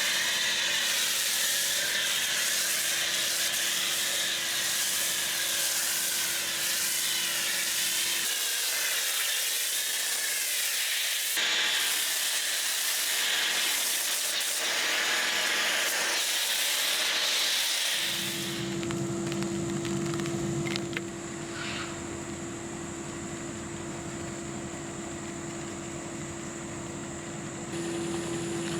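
A long, loud hiss of pressurized spray, wavering as it moves. About eighteen seconds in it gives way to a quieter, steady machine hum with a low tone.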